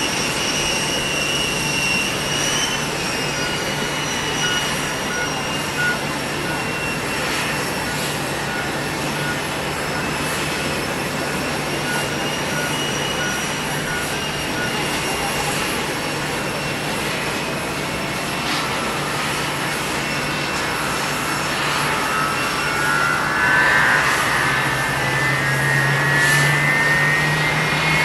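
Boeing 747-400D's four jet engines running with a steady high whine; after about twenty seconds the whine climbs in pitch and the sound grows louder as the engines spool up.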